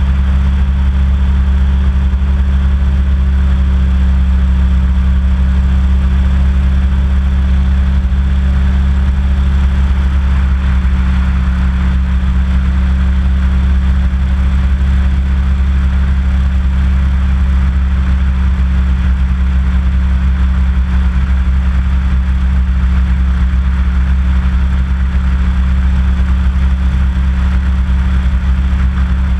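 Small hovercraft's engine and fan running at a steady cruise, an even loud drone heard on board with no change in pitch.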